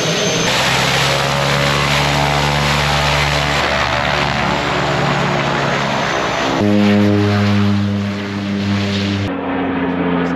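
de Havilland Canada DHC-6 Twin Otter's twin turboprop engines running loud and steady as the plane leaves after the drop-off, a propeller drone with several steady tones. The tones shift abruptly about two-thirds of the way through, and the sound turns duller near the end as the plane climbs away.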